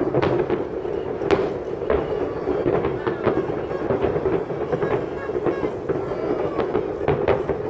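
Aerial firework shells bursting in an irregular series of bangs and crackles, one or two a second.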